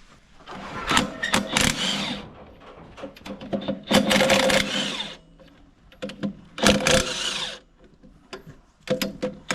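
Cordless impact wrench hammering in four short bursts, the first and longest lasting about a second and a half.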